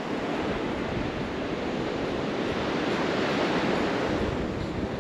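Steady rushing noise of ocean surf, with wind on the microphone.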